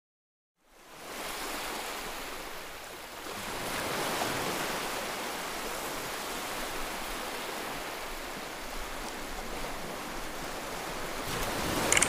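Ocean surf rushing steadily on a beach, fading in under a second in and swelling slightly about four seconds in.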